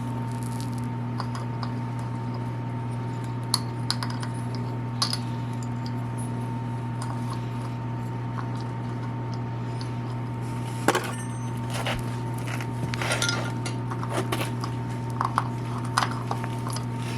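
Scattered small metallic clicks and clinks of a socket working the bolts of a Kawasaki KLX110's oil filter cover, over a steady low hum.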